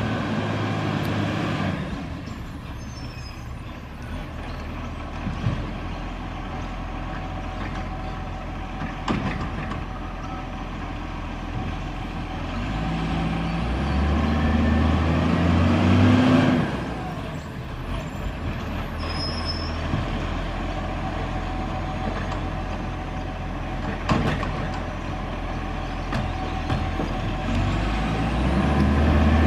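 Dual-control side-loading organics garbage truck's diesel engine idling, revving up three times as it works at the bins. A few sharp knocks sound in between.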